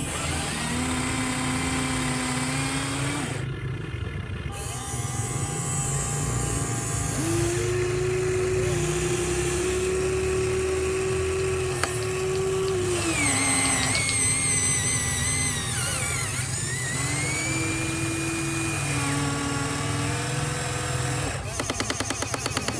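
Huina RC excavator's small electric motors and gearboxes whining, the pitch holding for a few seconds, then stepping or gliding to a new note as different movements start and stop. A rapid run of clicks comes near the end.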